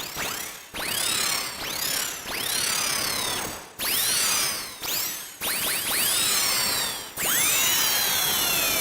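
A run of sci-fi sound effects built from a vacuum cleaner's motor sound: a string of whooshing, noisy bursts that each start suddenly. Each burst carries whistling tones that sweep steeply in pitch.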